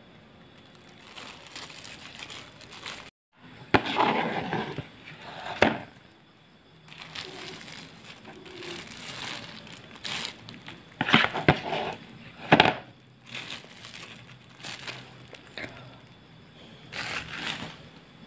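A thin plastic bag crinkling and rustling as thick, wet bait dough is spooned into it, with a spoon scraping and knocking against a plastic basin. The sounds come in irregular bursts with a few sharp clicks.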